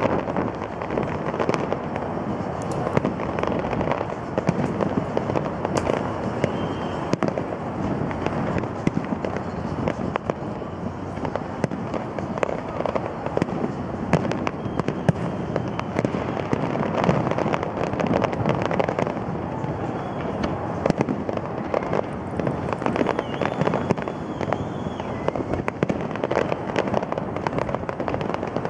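Aerial fireworks display: a continuous barrage of shell bursts and crackling, many bangs close together with no long pauses.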